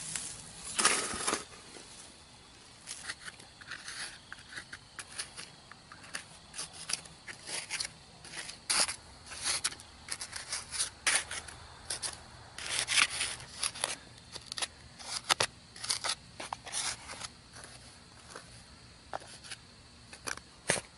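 A hand trowel scraping and chipping at packed clay soil in short, irregular strokes, digging it away from a buried aluminium casting. A shovel chops into grassy sod about a second in.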